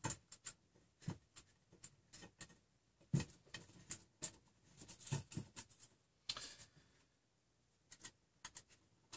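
Light clicks, taps and small rattles of hands handling small parts on a plastic 3D-printer extruder as a washer goes onto the hobbed bolt, with a short scrape about six seconds in.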